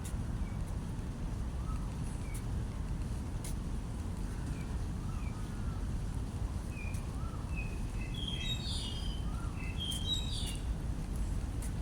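Small birds chirping in short, scattered calls, with a quick run of chirps about two-thirds of the way in, over a steady low rumble.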